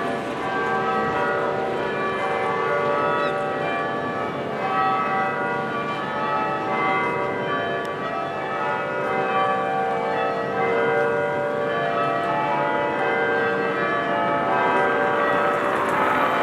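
Tower church bells rung full-circle in changes: a steady sequence of overlapping bell strikes whose tones ring on into each other.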